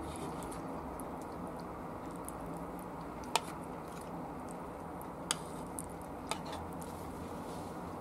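Eating from a bowl of rice with chopsticks: soft chewing, with a few sharp clicks of the chopsticks against the bowl, over a steady low hum.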